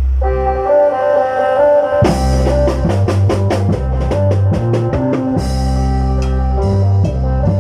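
Isan lam phloen band music: a pitched melody over a steady bass line, with the drums coming in about two seconds in as a quick run of strokes and then keeping a driving beat.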